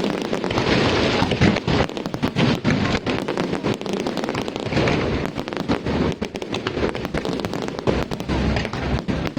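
Fireworks display going off in rapid succession: a dense run of bangs and crackles over a continuous rumble.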